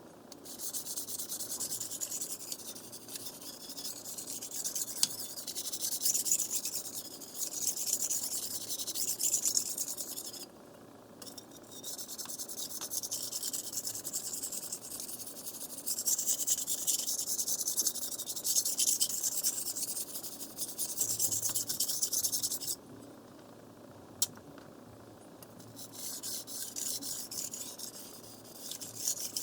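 Steel knife blade being stroked across a wet water whetstone, a steady grinding hiss. The stroking stops briefly about a third of the way in, and again for a few seconds past the two-thirds mark, when there is a single click.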